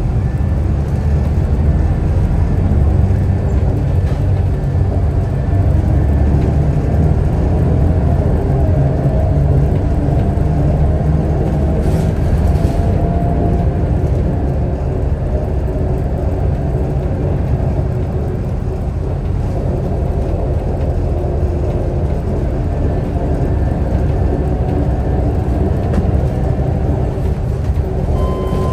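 Scania L94UB city bus with its 9-litre straight-six turbodiesel running steadily under way, a low, steady drone through the gearbox.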